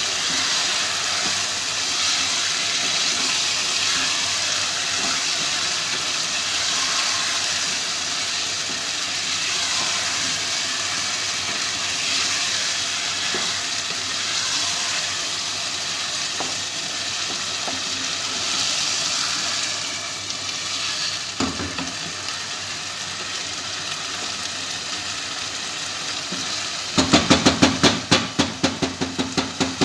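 Chicken frying and sizzling in a nonstick pot while a wooden spoon stirs it. Near the end comes a quick run of about ten sharp taps, the wooden spoon knocked against the pot's rim.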